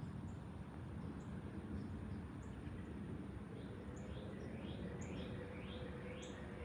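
Faint, steady low rumble of a jet airliner passing high overhead. A little past halfway, a bird joins in with a quick series of short rising chirps, about two a second.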